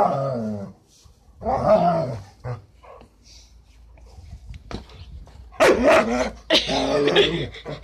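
A dog barking and growling at a broom, snapping at its head as it is swept. The barking is much louder and comes thick and fast in the last couple of seconds.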